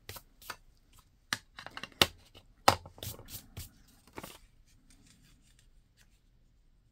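Paper being handled at a craft table: a quick run of crisp taps, snaps and rustles that stops about four seconds in.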